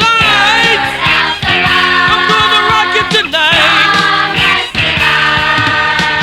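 Rock song playing, with sung, wavering held notes over the band.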